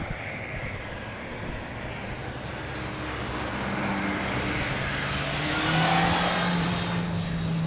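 Engine noise: a hiss that swells to its loudest about six seconds in and eases off, over a steady low hum that comes in a few seconds in.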